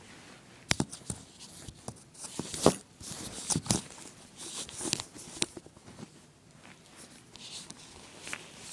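BMX bike being handled, with irregular sharp clicks and knocks and short rustling scrapes; the loudest knocks come about three quarters of a second in, near three seconds in and around three and a half seconds in.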